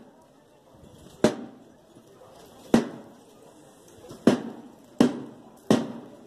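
Five sharp knocks, each with a short ringing tail, spaced unevenly: the first three about a second and a half apart, the last three closer together.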